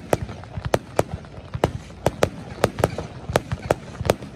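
Fireworks bursting in rapid succession: a quick, irregular run of sharp bangs, about three to four a second.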